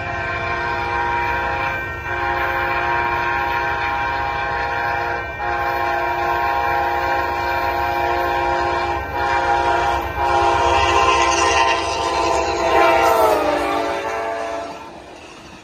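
Amtrak passenger train's locomotive air horn, blown for a grade crossing in long blasts with short breaks between them. The pitch drops about 13 seconds in as the locomotive passes. The horn then stops, leaving the rumble of the passing train.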